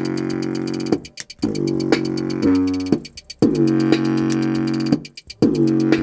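Electronic synth beat with a deep sustained synth line, played through a pair of small Logitech Z213 desktop speakers; the sound cuts out briefly three times.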